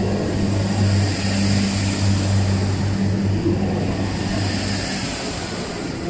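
Irish Rail 22000 Class diesel multiple unit pulling away along the platform, its underfloor diesel engines running in a steady low drone as the carriages pass close by. The drone fades about five seconds in as the last carriage goes by, leaving a rushing air noise.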